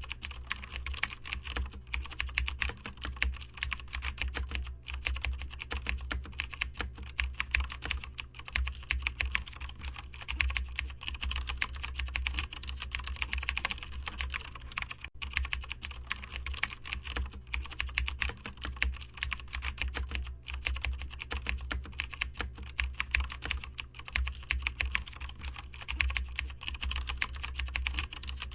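Continuous fast typing on a computer keyboard, dense key clicks with brief pauses every few seconds, over a steady low hum.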